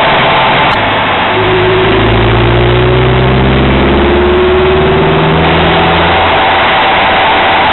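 Honda Accord Euro R engine pulling under acceleration, its pitch climbing slowly for about four seconds over a loud steady rushing noise, then dropping away as it eases off.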